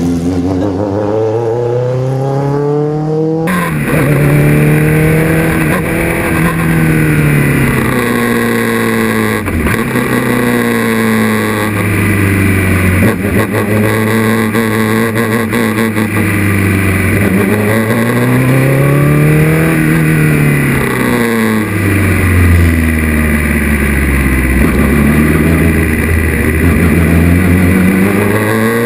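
A Formula 2 single-seater's 250 hp Renault engine revving hard, heard first from trackside and then, after an abrupt change about three seconds in, close up on board. Its pitch climbs and falls back again and again as the car accelerates out of corners and lifts or downshifts into the next.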